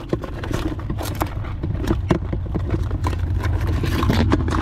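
Live blue crabs scrabbling in a plastic bucket: irregular sharp clicks and scratches of claws and legs on the plastic, over a steady low rumble.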